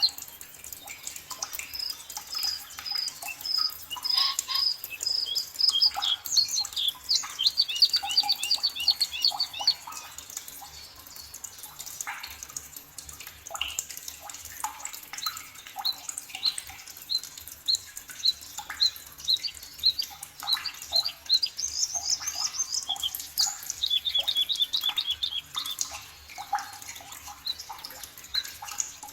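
Several forest birds singing and calling together: series of short high repeated notes, quick trills, and scattered sharp chirps over a faint background hiss.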